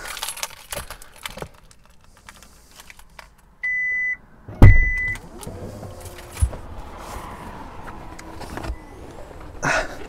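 Keys jangling, then a Hyundai IONIQ 5's tailgate being released from inside: a short beep, a loud thump, a second short beep, and a power tailgate motor running for a few seconds as it opens.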